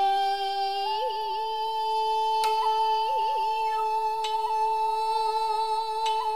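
Jiuta music: a shakuhachi holds a long steady note while a woman sings a held note with small wavering ornaments, and a shamisen is plucked sharply three times, about two seconds apart.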